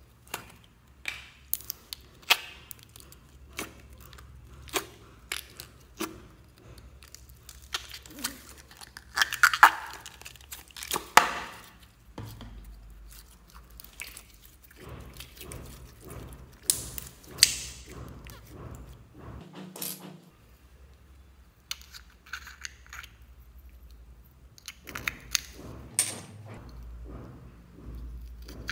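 Hands squeezing, stretching and kneading clear slime, making irregular sharp clicks and snaps as trapped air pops. The clicks come unevenly, bunched louder about a third of the way in, with a quieter spell past the middle.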